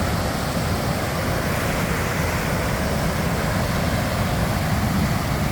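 Waterfall rushing steadily: an even wash of fast-flowing water.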